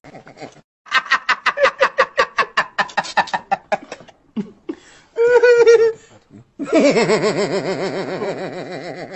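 Hearty laughter in rapid "ha-ha-ha" bursts, about seven a second, for some three seconds. A short strong cry follows a little after the midpoint, then a long wavering drawn-out cry near the end.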